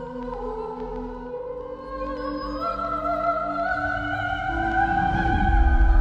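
Dramatic background music: sustained choir-like voices and orchestral chords that shift pitch step by step and swell steadily louder, with a deep low rumble building in the last two seconds.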